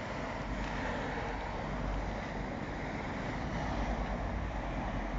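Wind on the microphone: a steady low rumble and hiss.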